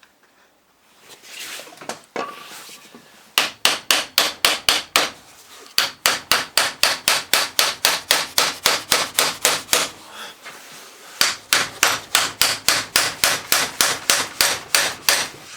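Rapid hammer blows on a corroded starter motor to free a stuck part, in three runs of about four to five strikes a second with short pauses between them.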